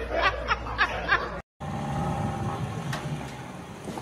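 A person laughing in short repeated snickers, about four a second, cut off abruptly about a second and a half in. A steady low rumbling noise follows.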